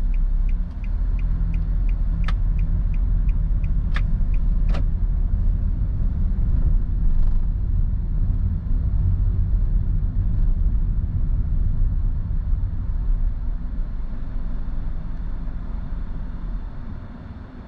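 Car cabin noise: a steady low engine and road rumble as the car turns left and drives on, with the turn-signal indicator ticking about two to three times a second for the first four seconds or so and a few sharp clicks in the same stretch. The rumble drops off near the end as the car slows to a stop.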